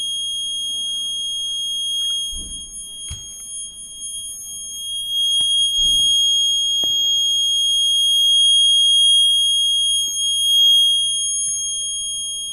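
Homemade water tank overflow alarm's buzzer sounding one continuous high-pitched tone, getting louder about five seconds in, with a few soft knocks over it. The alarm sounds when water reaches the overflow level.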